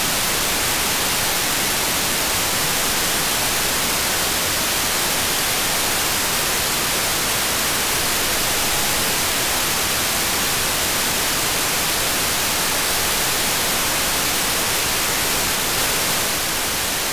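Steady hiss of an AirSpy Mini software-defined radio demodulating FM on the ISS 145.800 MHz downlink with the squelch open and no voice on the channel: plain static between transmissions.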